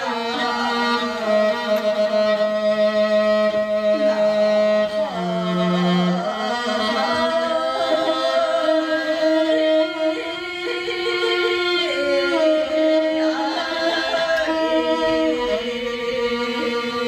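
Live music: a singer with a bowed string instrument, on long held notes that change pitch every few seconds.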